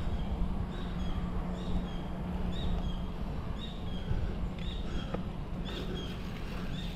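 A bicycle ride: steady wind and road rumble, with a short high two-note chirp that repeats about once a second.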